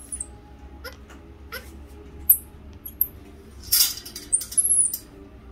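Squirrel monkey giving several short, very high-pitched chirps, with scattered sharp clicks and a brief rustle from the wire cage as it moves about.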